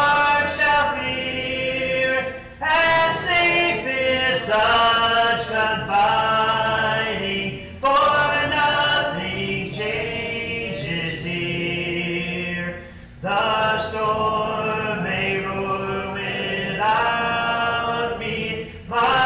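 Church congregation singing a hymn a cappella, voices only with no instruments, led by a male song leader; long held notes with brief breaks between phrases.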